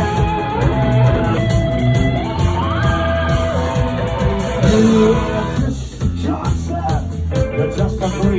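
A rock band playing live: electric guitars and drums, with a singer's voice over them.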